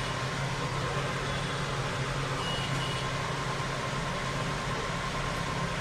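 Steady background hum and hiss at an even level, with a low droning hum and a faint high tone and no distinct clicks or knocks.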